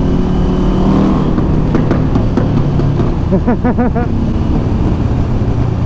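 Motorcycle engine running, its note falling gradually in pitch, with a few faint spoken words a little past halfway.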